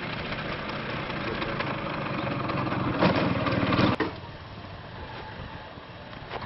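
A motor scooter's small engine running as it rides toward the microphone over a railway bridge deck, with a rapid rattling clatter of its wheels over the sleepers, loudest about three seconds in and cutting off suddenly about a second later. After that a motorcycle riding away is heard more quietly.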